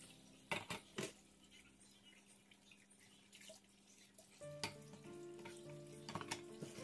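Pots and pans knocking and clattering in a metal sink as washed cookware is stacked, in a few sharp knocks near the start and again toward the end, over soft background music.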